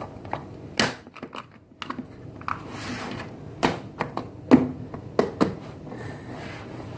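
Irregular clicks and light knocks of small objects being handled and set down, about a dozen spread unevenly with no steady rhythm.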